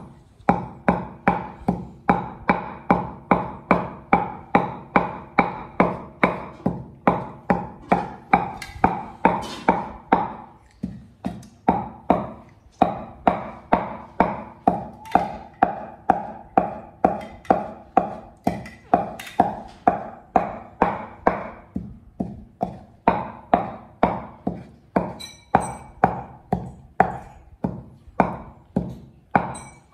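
Wooden pestle pounding seeds in a wooden mortar, about two strikes a second, each strike a hollow knock with a short woody ring. The pounding breaks off briefly a couple of times.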